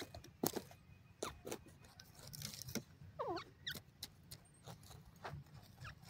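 Grey francolin giving short, soft downward-sliding call notes, a quick cluster of them about halfway through, amid scattered sharp clicks.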